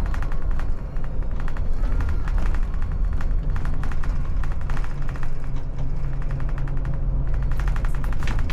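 Background music with a fast, rapid-fire beat, over a steady low drone.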